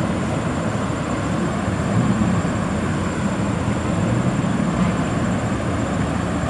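Diesel dump trucks running along a haul road in the distance, a steady low rumble with no breaks.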